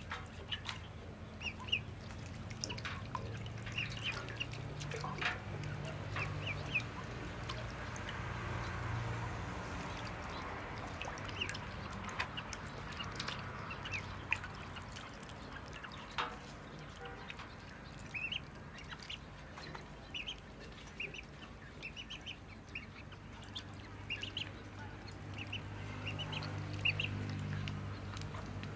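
Ducklings peeping in short, high, repeated calls, with small splashes and dabbling as they paddle in water in a metal basin. A low steady hum runs underneath.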